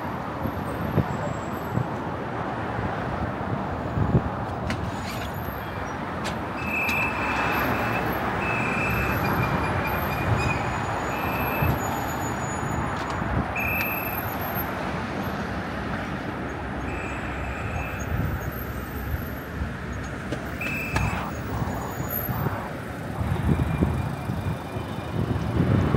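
Busy city street ambience: a steady rush of road traffic, with a series of short high beeps coming and going between about seven and twenty-one seconds in.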